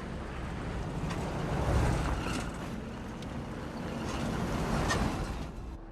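A vehicle driving on the road: steady rushing wind and road noise over a low engine hum, swelling twice, about two seconds in and again near the end, then cutting off abruptly.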